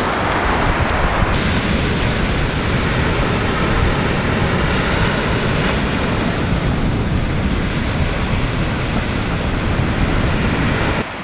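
Sea surf breaking and washing onto a sandy beach, a steady loud rushing noise, with wind rumbling on the microphone.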